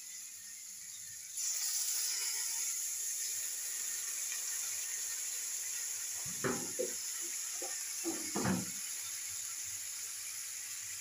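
Water being poured into a metal kadai of simmering curry: a steady pour starting about a second and a half in, with a few short knocks around the middle.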